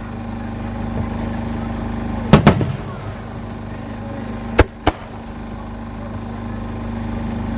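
Fireworks shells bursting overhead: two pairs of sharp bangs, one about two and a half seconds in and one just under five seconds in, over a steady low hum.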